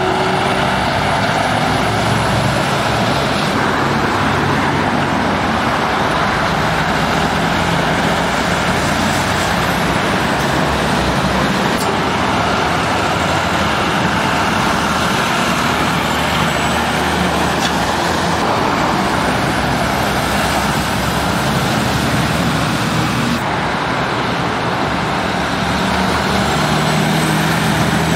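Heavy goods lorries passing close by: diesel engines and tyres over steady road traffic noise. A lorry's low engine note stands out at the start and again near the end.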